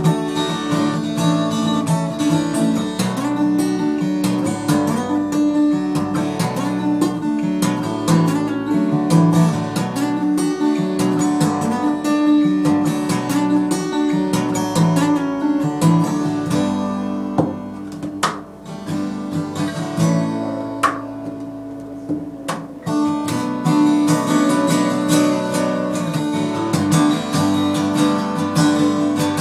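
Taylor acoustic guitar being played, busy strummed and picked patterns, with a quieter passage of sparser ringing notes a little past the middle.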